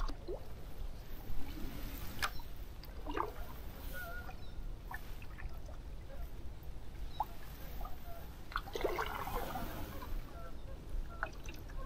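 Wooden canoe paddle working in calm water: scattered drips and small splashes from the blade, with a fuller, sloshing stroke about nine seconds in.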